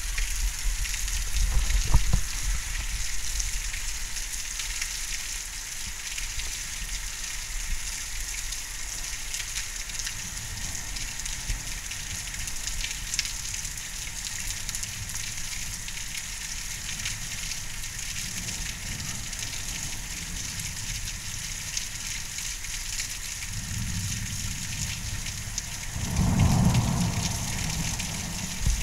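Heavy rain falling steadily in a thunderstorm, a constant hiss, with low rumbling that comes and goes and is loudest near the end.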